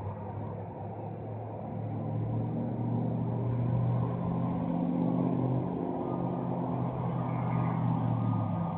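A car passing with its engine running at a low, steady note that swells and then fades near the end. It is a car whose engine is made to misfire.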